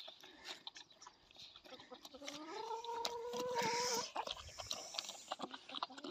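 Two Kangal puppies lapping and chewing milk-soaked bread from a bowl, a run of quick small wet clicks. About two seconds in, a hen gives a drawn-out call that rises and then holds for about two seconds.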